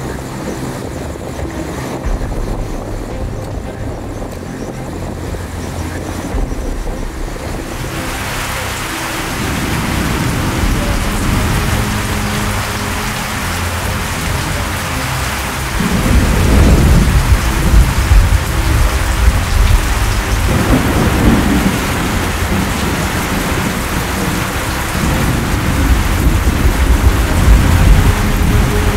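Thunderstorm: low rolling thunder, then heavy rain starts about eight seconds in and keeps pouring. The thunder rumbles louder from about halfway through.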